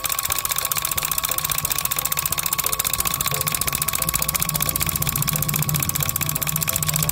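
Miniature single-cylinder diesel water-pump engine running steadily with a fast, even chug and a constant whine above it.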